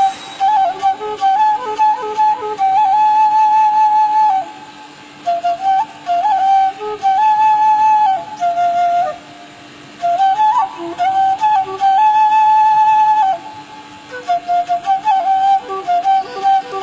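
Indonesian bamboo flute (seruling) playing a slow, lilting melody in phrases: long held notes decorated with quick ornamental turns, with short pauses between phrases.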